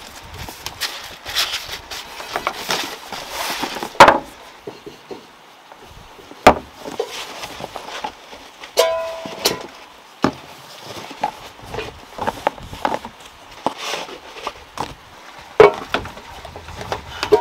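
Cardboard box being opened and unpacked, rustling, with several sharp knocks as paint tins and other items are set down on wooden floorboards.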